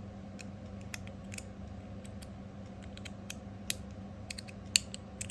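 Copper TopB mechanical fidget slider being slid by hand, giving irregular sharp clicks from its detent click plate. It is fresh out of the package and untuned, and its owner calls it gritty.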